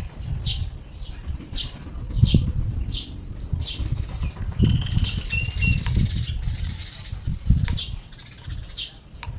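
A small bird flapping and fluttering its wings in short bouts while attacking its reflection in a motorcycle mirror, with short high chirps about once a second and one brief whistled note midway.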